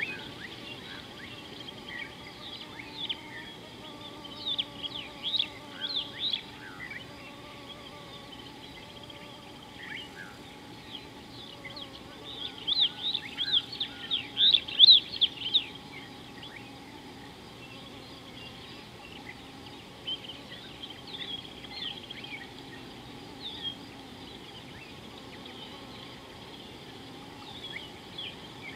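Birds calling: bursts of quick, high chirps over a steady outdoor background, the loudest run about twelve to sixteen seconds in.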